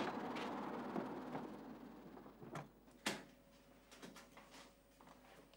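Scattered clicks and knocks over background noise that fades away in the first two seconds or so. The loudest is one sharp, door-like click about three seconds in.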